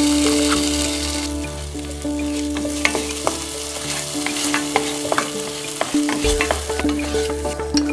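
A spoon stirring a wet ground masala paste and sliced onions as they fry in butter in a pan, sizzling, with repeated clicks and scrapes of the spoon against the pan. The sizzle is strongest in the first second or so, then settles lower.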